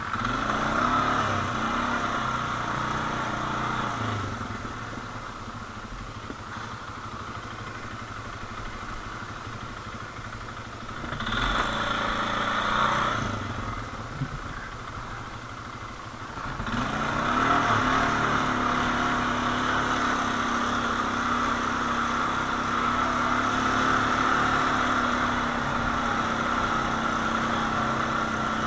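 Quad (ATV) engines running: the engine note swells about eleven seconds in, drops back, then rises again from about seventeen seconds and holds a steady drone.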